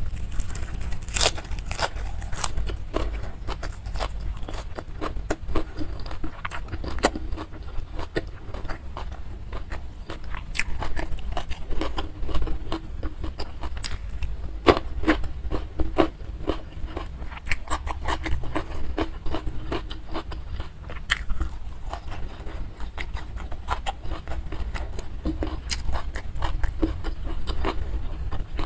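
Close-miked chewing and crunching of food with the mouth, starting on a mouthful of raw kenikir leaves, with frequent irregular wet mouth clicks and smacks.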